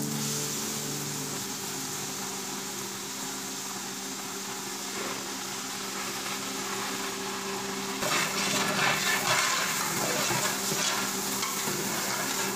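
Chopped tomatoes sizzling as they hit hot oil in a large pot, with a long metal spatula stirring and scraping through them; the stirring gets louder and rougher about eight seconds in.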